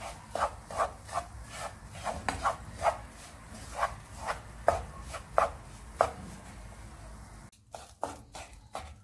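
Wooden spoon scraping and stirring crumbly flour roasting in butter and oil in a frying pan, in quick strokes about two a second that ease off after about six seconds and pick up again near the end. The flour is being roasted for flour halva and stirred constantly so it does not burn.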